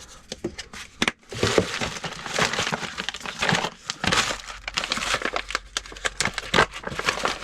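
Rustling and crinkling with many small clicks and knocks, from food packaging and utensils being handled as a dog's meal is mixed by hand.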